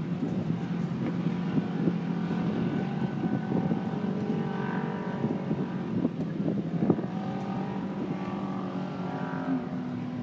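Off-road race vehicle engines running steadily, with wavering pitch now and then as they rev, and wind on the microphone.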